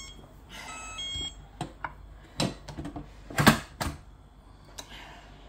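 Electronic beeps from a Tefal electric pressure cooker's touch panel, then the clunks and clicks of its lid being lowered and locked shut. The loudest clunk comes about three and a half seconds in.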